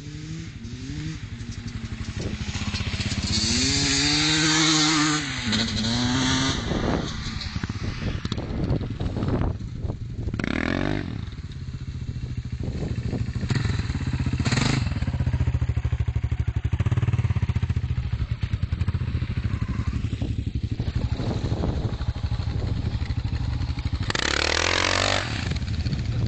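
Two-stroke motocross bikes, among them a Husqvarna 250, revving hard over rough ground, their pitch rising and falling as they accelerate and ease off. Several times a bike passes close and gets much louder, about ten, fourteen and twenty-four seconds in.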